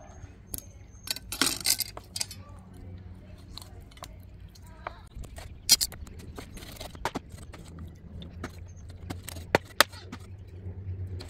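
Cleaver chopping raw chicken on a wooden cutting board: irregular sharp knocks of the blade going through the meat and striking the board, a few of them much louder, over a steady low hum.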